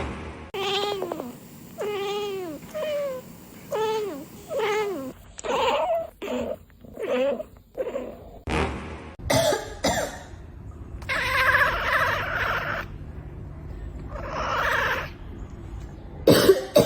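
Cats making odd vocal sounds. First comes a run of short meows falling in pitch, about two a second; then a string of short cough-like bursts; then two longer raspy noises.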